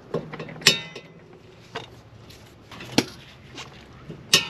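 A breaker bar and socket clinking against the steel brake caliper bracket bolts. There are a few sharp metallic clinks, the loudest about two-thirds of a second in, at three seconds and near the end, and the first and last ring briefly.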